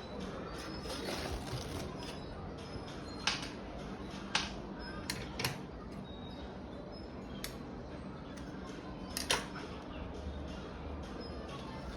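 About six scattered sharp clicks and taps, the loudest several seconds apart, over a low steady hum: small sewing tools and the garment being handled at the work table while the interfacing is taken off the zipper area.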